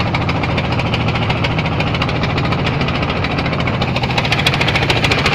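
Inboard engine of a wooden motorised country boat (trawler) running under way, a steady, rapid knocking beat of firing pulses.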